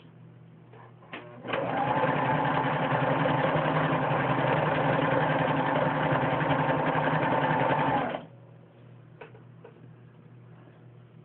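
Singer 6012C sewing machine running at a steady speed, stitching along a strip of fabric. It starts about a second and a half in and stops abruptly after about six and a half seconds. A few light clicks come before and after.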